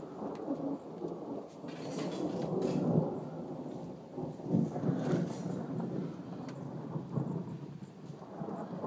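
Thunder rumbling and rolling on for several seconds, swelling to its loudest about three and again about five seconds in before easing off.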